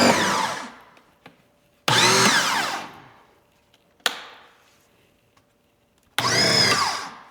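Four Ryobi electric pressure washers plumbed together starting up in short bursts, each roughly a second long, cutting off with a whine that falls in pitch as the motors wind down, three times with a brief blip between. They are running on a 3.0 nozzle, which the owner judges too small for the combined flow.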